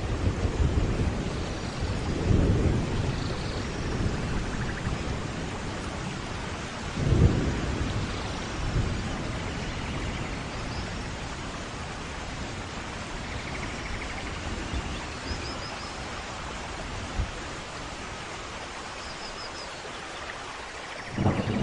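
Thunderstorm in a forest: steady rain with rolling thunder. A sharper peal of thunder comes about seven seconds in, the rumbling dies down through the middle, and a new loud rumble starts right at the end.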